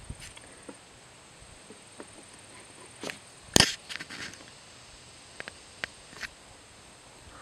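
Scattered light clicks, with one sharper knock about three and a half seconds in.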